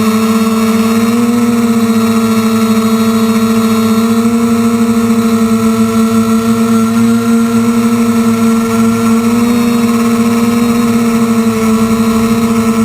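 Quadcopter motors and propellers running in flight: a loud, steady buzzing hum whose pitch wavers slightly with throttle.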